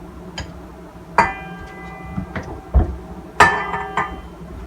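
Kitchenware clinking: two sharp knocks about two seconds apart, each leaving a bell-like ringing tone, like a mixing bowl being struck or set down, with a few lighter taps between.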